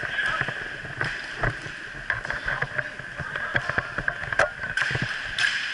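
Hockey game play: sharp clacks and knocks of sticks and the puck on the rink floor and boards, scattered irregularly over a steady high rink hiss.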